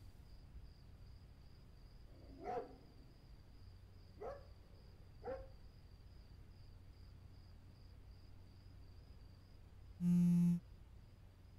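A smartphone vibrating once on a bed as a notification arrives: a short, loud buzz about ten seconds in. Before it, three short faint noises a second or two apart over a low steady hum.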